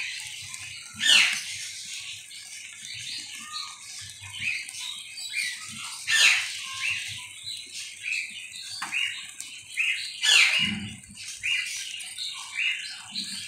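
Birds chirping: a steady stream of short high chirps, with a few louder calls that sweep down in pitch.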